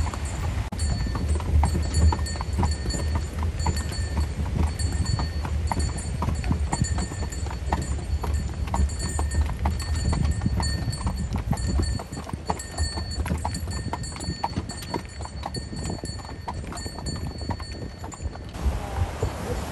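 A carriage horse's hooves clip-clopping at a steady walk as the horse-drawn carriage rolls along, over a low rumble that drops away about halfway through.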